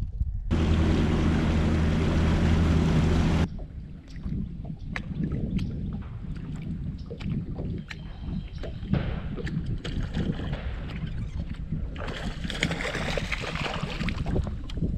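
Sounds of a bass boat on the water: for about three seconds a loud, steady low hum with a hiss, which cuts off suddenly. After it comes a quieter mix of wind, water and scattered small knocks over a faint low hum.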